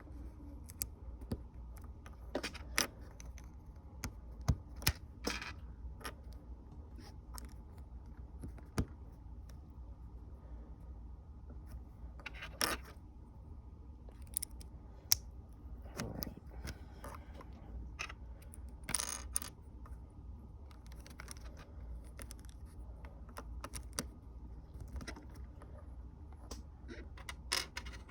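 Small plastic Lego pieces clicking and rattling as they are handled and pressed together: scattered sharp clicks with a few longer rattles, over a steady low hum.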